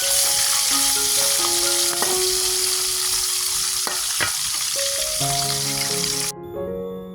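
Food frying in hot oil, a dense steady sizzle with a few sharp clicks of a utensil in the pan, cutting off suddenly about six seconds in.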